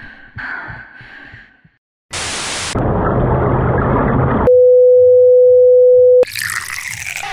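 Sound-design noise: a burst of bright static hiss, then a duller hiss with a low hum under it. Then a loud, steady, pure electronic tone holds for nearly two seconds and cuts off abruptly, followed by more static hiss.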